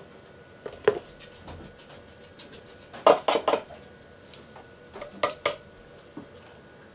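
Plastic measuring cups and spoons clinking and tapping against a bread maker's pan and ingredient containers: a handful of short sharp knocks, one about a second in, a quick cluster of three around the middle and two more a little later.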